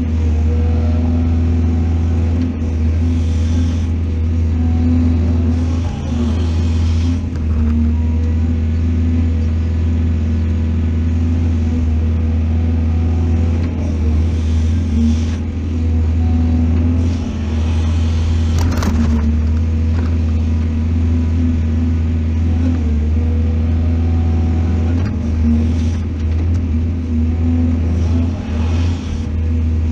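Heavy diesel engine of a mining excavator running steadily under load, a deep drone with a constant hum, swelling now and then as it works, with a sharp knock about nineteen seconds in.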